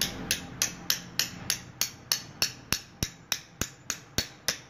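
A farrier's small hammer tapping a metal tool against a horse's hoof, light metallic strikes about three a second at an even pace, as the hoof is cleaned and prepared for a new shoe.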